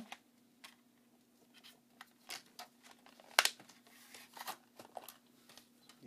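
Handling of a clear plastic RAM module package as the old memory modules are put away: scattered small clicks and crinkles, with one sharp click about three and a half seconds in.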